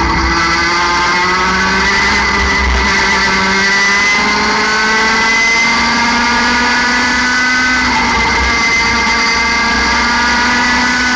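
60cc two-stroke mini-kart engine at full throttle out of a corner, its pitch rising steadily for about five seconds as the revs climb from about 10,000 to 14,000 rpm, then holding high and nearly level at about 14,000 rpm down the straight.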